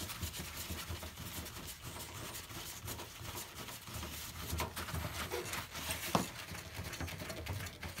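Torx screwdriver undoing a small screw from a washing machine's front plinth area: soft, continuous scratchy rubbing with a couple of light clicks.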